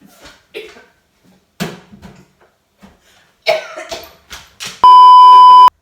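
A woman coughing in short, harsh fits after getting pepper spray in her face. Near the end comes a loud, steady, high beep lasting just under a second, like a censor bleep.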